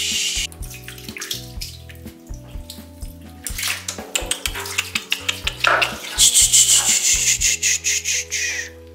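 Background music with a steady bass line, over the wet rubbing and splashing of hands washing a soaked cat's fur. The washing noise turns loud about six seconds in and stops just before the end.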